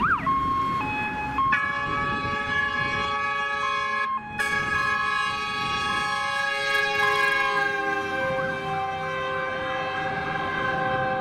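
Fire engine multi-tone air horns blaring as a held chord of several steady notes. The chord breaks off briefly about four seconds in, then resumes, and its pitch drops slightly later on.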